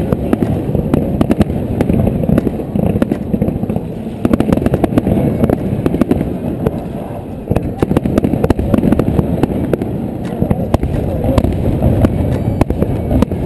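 Aerial fireworks bursting in quick succession: many sharp bangs and crackles over a continuous low rumble, easing briefly about seven seconds in before picking up again.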